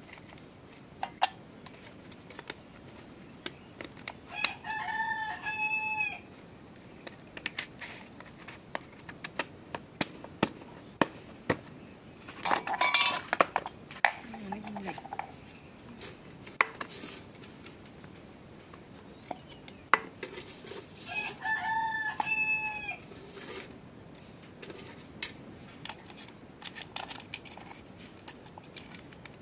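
A rooster crowing twice, about five seconds in and again after twenty seconds, each a call of about two seconds. Scattered clinks and clatter of pots and utensils sound throughout.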